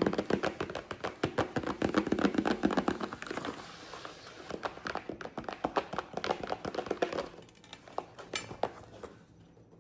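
Rapid tapping and handling of a keyboard's box and its packaging. Quick clicks come thick for the first few seconds, then rustling with scattered taps, thinning out and going quiet near the end.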